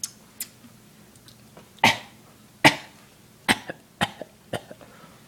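People coughing on purpose, about five short, sharp coughs spaced through the middle, the loudest two close together about two seconds in.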